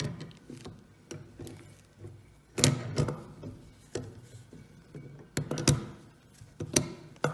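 Mechanical stage with brass fittings being worked into place on an antique Carl Zeiss microscope stand: a series of irregular clicks and knocks, the loudest about two and a half seconds in and several more between five and a half and seven seconds.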